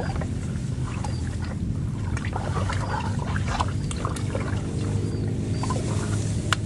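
Monopotassium phosphate fertilizer being scooped from its bag and tipped into a plastic bucket: soft rustling of the bag and granules with light scattered clicks, and a couple of sharper clicks near the end. A steady low motor hum runs underneath, with a few short high chirps.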